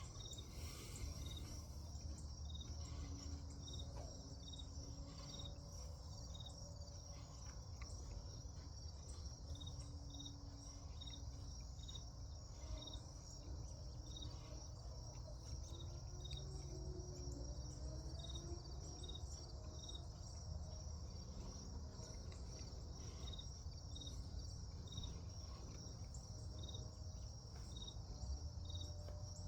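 Crickets chirping: a steady high trill with a separate short chirp repeating about once a second, over a faint low rumble.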